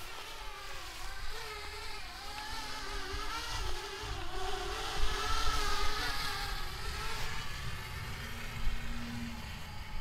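Parrot Bebop quadcopter's electric motors and propellers buzzing in flight, the whine of several tones wavering up and down in pitch as it manoeuvres, over a low rumble.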